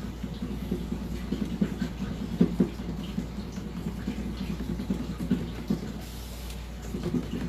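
Steady low machine hum in the room, with soft irregular dabs and rustles of a cloth rag blotting wet chalk paint on a wooden tabletop; the firmest dabs come about two and a half seconds in.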